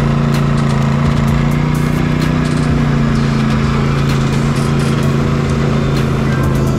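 Can-Am Renegade 1000R's V-twin engine running at a steady trail-riding speed, the pitch lifting slightly about two seconds in, with scattered small ticks over it.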